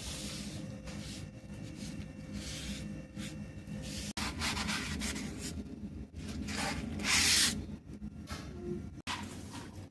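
Irregular rubbing and scrubbing strokes on a hard surface, as when wiping or scrubbing grime off. The sound breaks off abruptly twice, and there is a louder, harsher stroke about seven seconds in.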